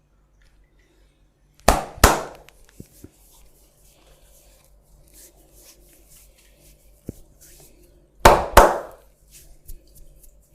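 Two pairs of loud, sharp hand smacks from percussive massage strikes, the second pair about six seconds after the first, with a few faint clicks between them.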